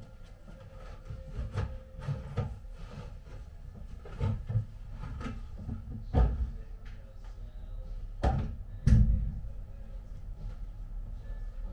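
Wooden knocks and thumps as a wooden display cabinet and its shelving are handled and fitted. They come irregularly, with the two loudest about eight and nine seconds in.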